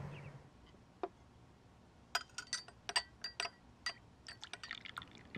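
Metal cutlery clinking against plates at a meal, with a single light clink about a second in and then a quick, irregular run of a dozen or so ringing clinks from about two seconds in.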